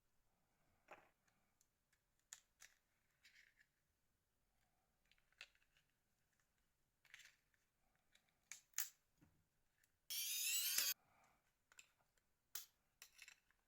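Faint, scattered clicks and taps of small plastic and metal phone parts being handled during a Nokia N73 teardown, with one short, harsh scrape lasting under a second about ten seconds in.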